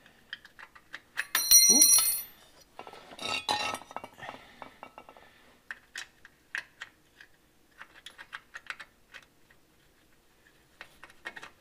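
Small metal fastener clips clinking and clicking against a car's underbody sheet metal as they are handled and worked into their mounting holes. A loud ringing metallic clink comes about a second and a half in, then some scraping and a long run of light clicks.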